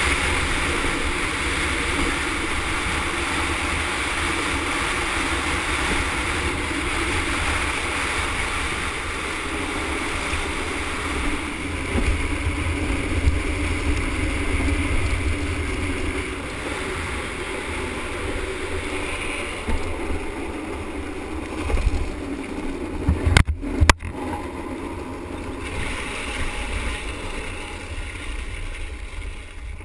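A street luge rolling fast on asphalt, its wheels on the road and the wind rushing over the board-mounted microphone: a steady rushing noise with heavy rumble. There are a few brief knocks about three-quarters of the way through, and the noise eases toward the end as the luge slows down.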